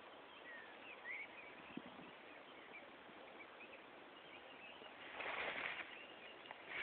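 Quiet outdoor ambience with a few faint, short bird chirps about a second in and a brief rustle about five seconds in.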